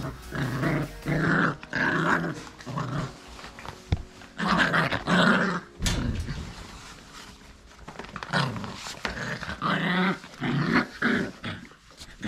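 Miniature Australian cattle dog puppies growling in short, repeated play growls as they wrestle, in three bouts with pauses between.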